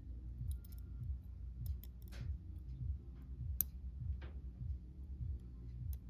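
Faint small clicks and scrapes of tools working a stuck pin stack out of a brass Master Lock No. 160 padlock, the sharpest click about halfway through, over a low rhythmic thumping in the background.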